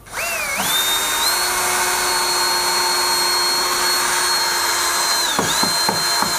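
Cordless drill-driver running a screw into a wall plug: the motor whine rises in pitch as it spins up, holds steady, then dips under load with a few clicks near the end before it stops.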